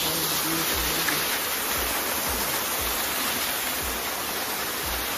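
Waterfall pouring down a rock face into a pool: a steady rushing noise, with a few soft low thumps.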